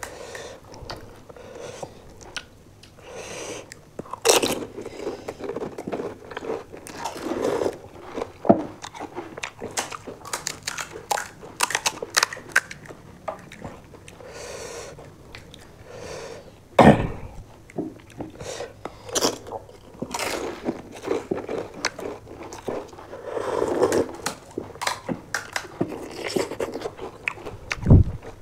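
Crunching and chewing of crisp panipuri puffs, eaten one after another by two people, close to the microphone. There are two loud thumps, one about halfway through and one near the end.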